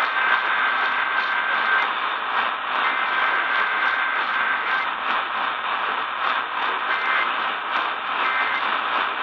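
Eton Elite Traveler portable radio tuned to AM 810, its speaker giving steady static hiss, with faint whistling tones that come and go.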